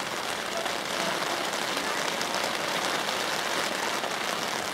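A steady, even hiss of noise with fine crackle in the treble, with no clear voices over it.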